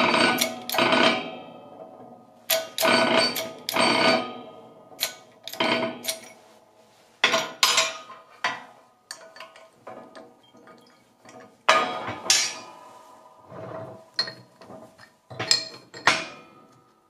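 An irregular run of sharp metallic knocks and clanks, each ringing briefly, from a shop press and bearing driver working to push the top spindle bearing out of a mini mill's head casting, the metal parts knocking against each other and the press plate.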